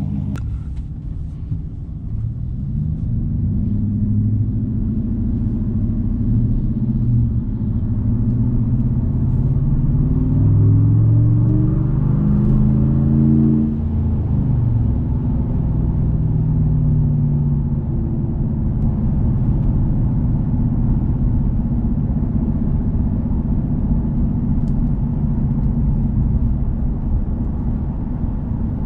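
Ram 1500's 5.7 L Hemi V8 through a Borla S-Type cat-back exhaust, heard from inside the cab while driving. The exhaust note rises steadily under acceleration for about ten seconds, drops when the throttle is lifted, and then settles into a steady low drone while cruising.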